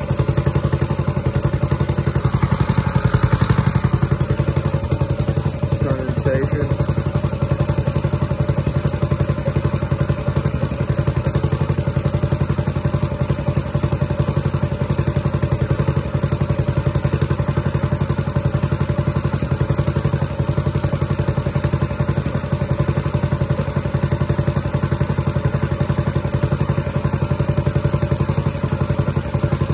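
Small single-cylinder engine on a walk-behind garden tractor idling steadily, warming up after a cold start.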